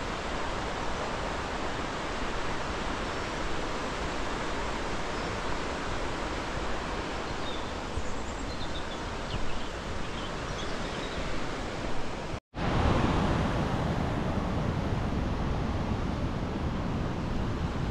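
Steady rushing outdoor noise with no clear pitch, with a few faint high chirps about eight to ten seconds in. An abrupt cut about two-thirds through leads to a louder, deeper rush.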